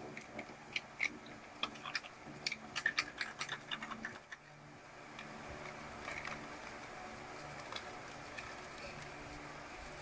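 Rapid small clicks and crinkles of plastic candy-tray packaging being handled, thickest in the first few seconds, then settling into softer rustling as a tray lid is peeled.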